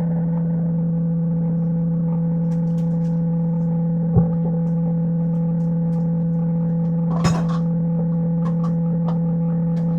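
A steady hum with several even overtones at a constant level. It is broken by a dull knock about four seconds in and a short, sharp clink a little after seven seconds.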